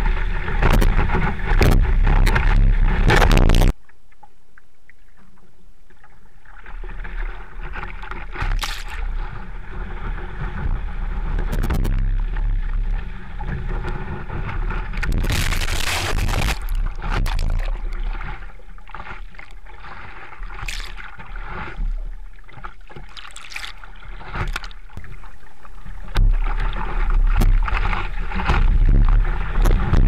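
Water rushing and splashing around a surfboard riding and paddling through surf, picked up by a camera mounted on the board's nose, with wind on the microphone. The noise drops suddenly about four seconds in, then comes in gusts of churning whitewater, loudest around the middle as the board goes through breaking foam, and grows louder again near the end.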